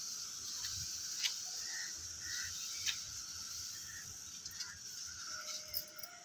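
Hand spray bottle squirting a neem oil and shampoo solution onto plant leaves in several short, sharp bursts, over a steady high hiss.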